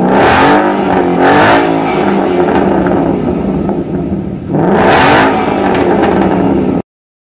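American muscle car engine revved three times, with the pitch rising and falling in each rev and idling between them. It cuts off abruptly near the end.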